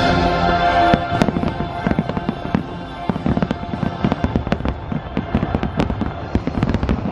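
Fireworks show: aerial shells bursting in a rapid, dense run of bangs and crackles from about a second in. The show's music plays through the first second and is then mostly buried under the bursts.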